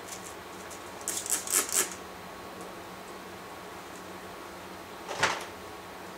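Hand-held plastic spray bottle misting water onto a section of wet hair, a quick run of about five short hissing squirts about a second in. One louder short burst of noise follows about five seconds in.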